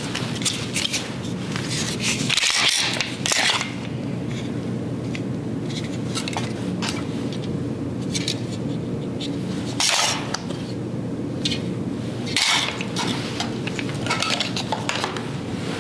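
A polymer pistol, its magazines and a hard plastic gun case being handled: scattered clicks and clinks of hard plastic knocking together, with louder knocks about two and a half, ten and twelve and a half seconds in. A steady low hum runs underneath.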